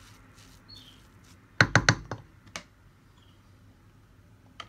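A wooden spoon knocking against a stainless steel mixing bowl: a quick run of knocks about a second and a half in, then a single knock shortly after and another near the end.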